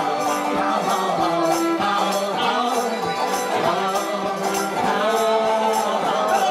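Live punk-blues played on harmonica and banjo, with a voice, over a steady high percussive beat of about two a second. The melody is carried by long held notes.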